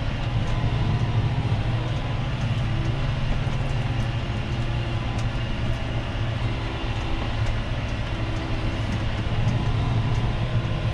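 Tractor engine running steadily while ploughing, heard from inside the cab as a low, even drone with faint light clicks.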